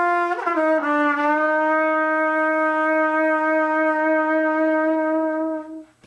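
Trumpet playing one long held note with finger vibrato, made by rocking the fingers on the valves so the horn moves on and off the lips. The note drops slightly in pitch about half a second in, then holds steady and stops near the end.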